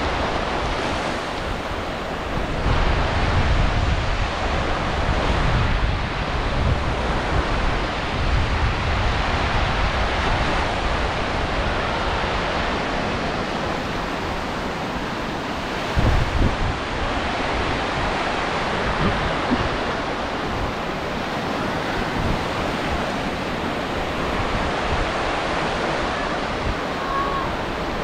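Mediterranean surf washing onto a sand beach in a steady rush, with wind buffeting the microphone in low gusts, strongest a few seconds in and again about halfway through.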